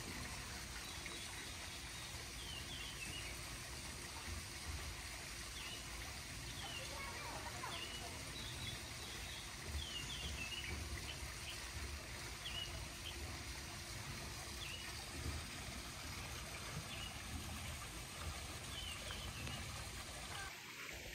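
Small birds chirping in short, scattered calls over a steady background of trickling water.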